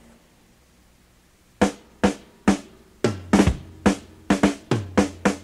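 After a quiet gap of about a second and a half, a drum kit starts playing on the cassette recording: three separate hits, then a faster, uneven run of hits. A low bass note sounds underneath from about three seconds in.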